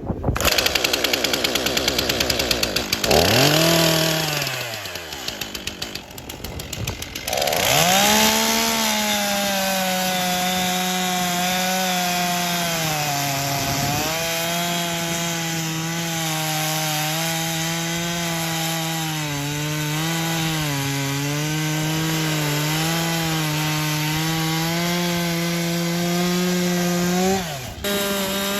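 Stihl chainsaw engine running hard while bucking a felled log into rounds. The engine pitch sags steeply a few seconds in and climbs back up, then holds fairly steady with small wavers as the chain cuts through the wood. Near the end it dips briefly and picks up again.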